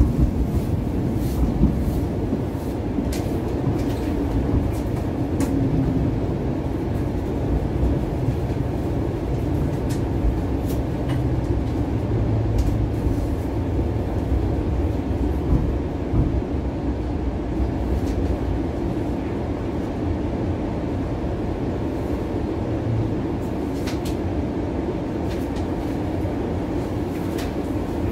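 Inside a moving Bombardier Flexity Outlook low-floor streetcar: a steady low rumble of the wheels and drive, with scattered short clicks and rattles.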